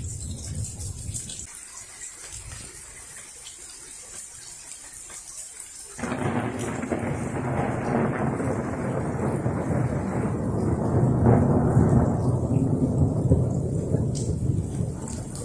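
Steady rain hiss with scattered drips. About six seconds in, a peal of thunder breaks suddenly and rolls on as a long rumble, loudest a few seconds after it starts and dying away near the end.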